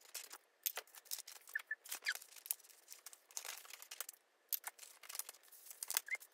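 Sheets of printed paper rustling and crackling as they are picked up, shuffled and sorted by hand, in a quick run of short rustles.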